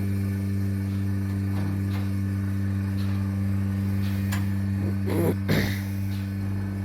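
Steady low-pitched motor hum with even overtones. A few faint clicks and a brief louder sound come about five seconds in.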